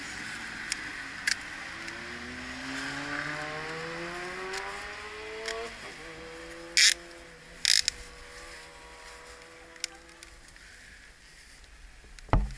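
A passing vehicle's engine rising in pitch for a few seconds as it speeds up, then holding a steady note before fading. Two sharp clicks come in the middle, and a dull thump near the end.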